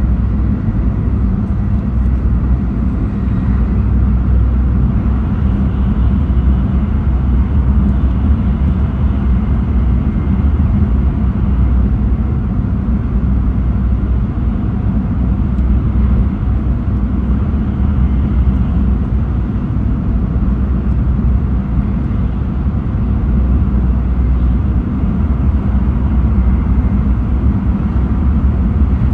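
Running noise of a JR East E6 series Shinkansen train (set Z2, Hitachi IGBT traction inverters) on the move at a steady pace: a constant, heavy low rumble of wheels on rail and car body.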